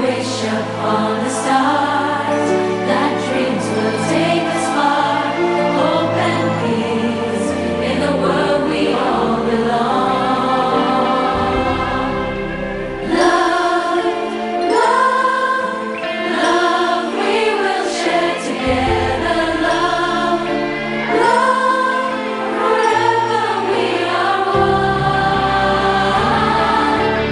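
A song with singing over an instrumental backing and a steady bass line.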